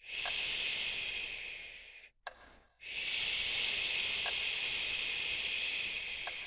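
A person making two long, soft shushing sounds ('shhh') to lull a listener to sleep, the second starting about three seconds in and trailing off slowly, with a small click between them.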